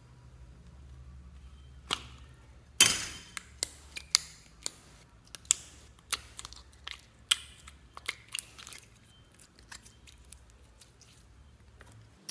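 Slime being squeezed and stretched by hand, giving a string of sharp clicks and pops as trapped air bursts, about fifteen irregular pops over some seven seconds, the loudest about three seconds in.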